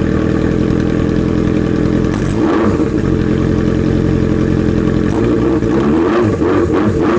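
Suzuki RF600R's inline-four engine running with the silencer removed, the exhaust open straight from the pipe: a steady idle, then a throttle blip a couple of seconds in and a few revs rising and falling near the end.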